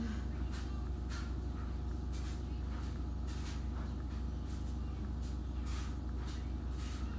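A steady low hum, with brief rustles and soft clicks scattered through it as hands move through hair and handle a makeup stick.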